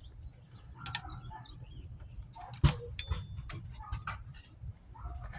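Drum-brake hardware being fitted by hand: a run of sharp metallic clicks and taps as the shoes, strut bar and springs are worked into place, with one louder knock about halfway through.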